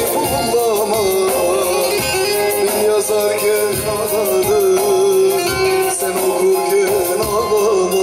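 A man sings a Turkish Teke-region folk song (türkü) in a strong voice, holding long, wavering, ornamented notes, with a bağlama (long-necked saz) playing under him.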